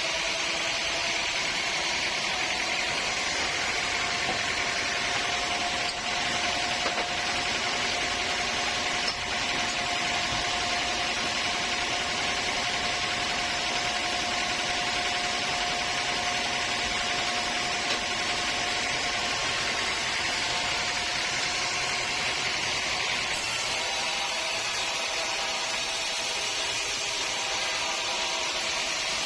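Sawmill saw running steadily through teak, a constant high hiss with a steady whine over it.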